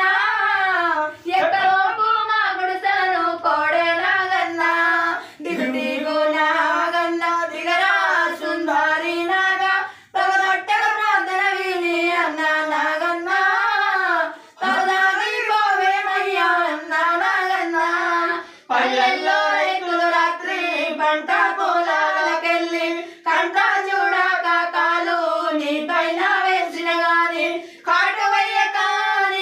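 Women singing a devotional prayer song without instruments, in phrases of a few seconds with short breaks about every four to five seconds.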